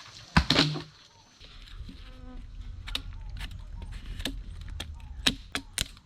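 A short loud burst just after the start, then a low steady buzz like an insect flying close by, dotted with several sharp clicks.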